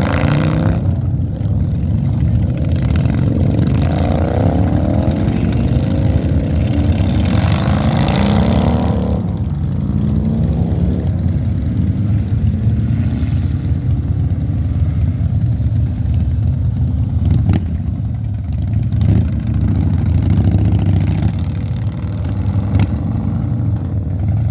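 Motorcycles riding past one after another, engines rumbling steadily with several rising revs as they accelerate away in the first ten seconds. A few short sharp clicks come in the second half.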